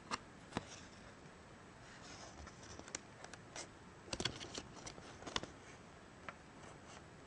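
A paper instruction leaflet handled and bent by fingers: scattered faint rustles and sharp crinkles, busiest from about four to five and a half seconds in.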